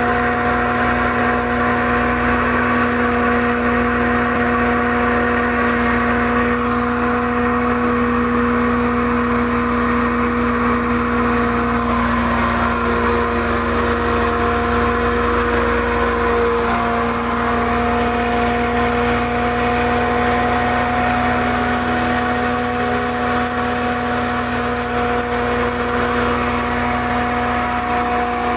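Commercial chili and spice pulveriser (hammer-mill grinder with cyclone blower) running steadily: a constant mechanical drone with a few fixed tones and no change in speed.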